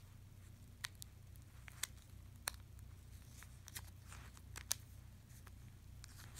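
Pokémon trading cards being flipped through by hand: faint, irregular sharp clicks and soft rustles as the card edges snap past one another, about one every second.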